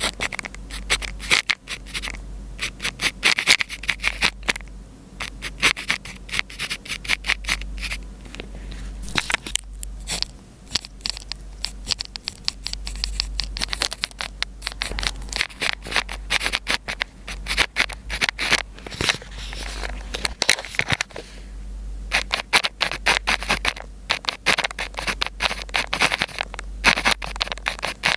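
Pen scratching across paper as Chinese characters are written, close-miked: quick runs of short strokes broken by brief pauses every few seconds, over a low steady hum.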